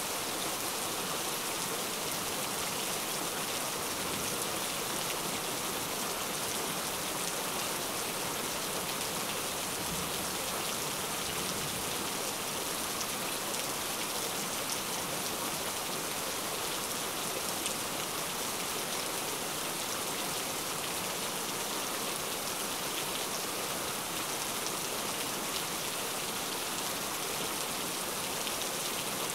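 Heavy rain falling steadily, a dense even hiss of drops with fine scattered patter, loud and unbroken.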